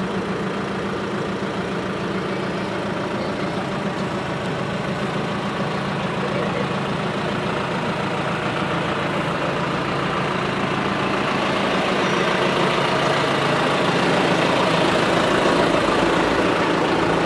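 Truck engine idling steadily with a low, even hum, growing a little louder in the second half.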